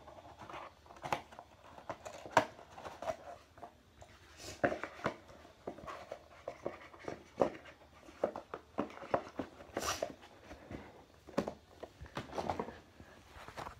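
Handling noise from a phone with its lens and microphone covered: irregular rubbing, scraping and bumps against the microphone.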